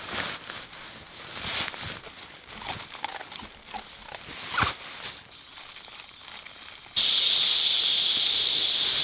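Nylon rustling and handling noise as a sleeping bag is packed into its stuff sack. About seven seconds in, a sudden steady loud hiss begins: air rushing out of the valve of a Therm-a-rest NeoAir XTherm inflatable sleeping pad as it is pressed flat to deflate it.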